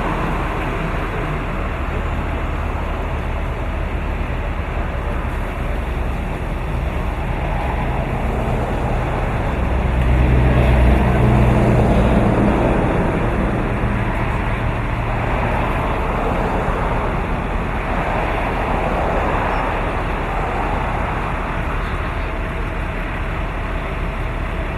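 A heavy vehicle's engine running steadily with a low hum. It swells louder for about three seconds roughly ten seconds in, then settles back.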